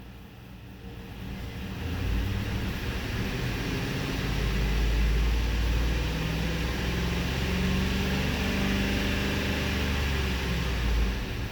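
2015 Kia Optima's 2.4-litre four-cylinder engine running, growing louder over the first couple of seconds, holding steady, then easing off near the end.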